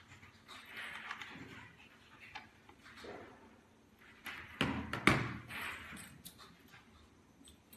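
Handling noises from a handheld moisture meter, its cable and its steel probe: light rustles and clicks, then a few sharp knocks on a wooden tabletop about four and a half to five seconds in, the loudest sounds here.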